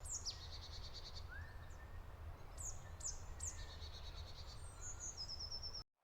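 Birds singing: several high, sharp down-slurred notes, each followed by a rapid, even trill, with a quieter rising whistle about a second in. A faint low rumble lies underneath, and all of it stops abruptly just before the end.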